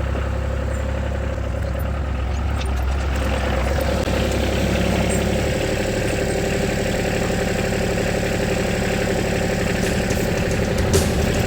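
A vehicle engine running steadily at idle. Its note changes about halfway through, and a few sharp clicks come near the end.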